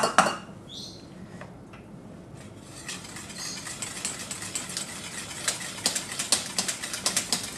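A utensil stirring in a stainless steel pot: a sharp clink at the start, then from about two and a half seconds in a quick, uneven run of light clinks against the metal.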